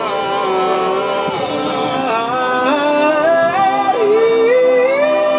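Live band music: a man sings lead over electric guitars, holding long notes that slide from one pitch to the next.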